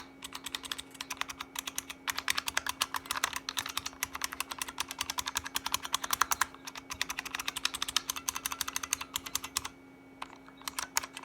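IBM Model M buckling-spring keys being pressed rapidly and repeatedly, a fast run of clacks that stops briefly near the end before a few more presses. The keys are being tested after a water-spill repair, and some of them stick and feel bad. A faint steady electrical hum runs underneath.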